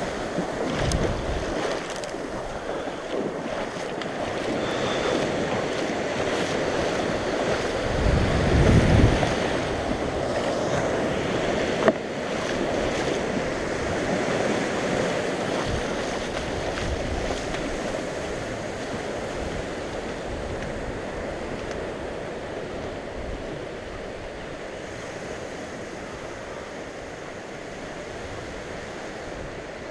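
Small surf breaking and washing around a kayak as it comes ashore through the shallows, heard close to the water. A louder surge comes about eight seconds in and a single sharp knock a few seconds later; the wash grows quieter toward the end.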